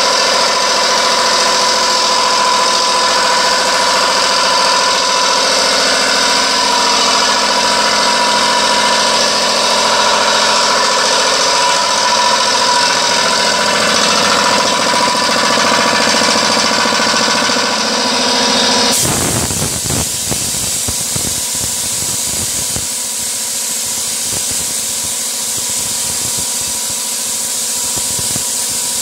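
Tank-mounted piston air compressor running steadily with a steady hum. About two-thirds of the way in the sound changes abruptly to a hissing blast of air and abrasive from a sandblasting nozzle etching glass.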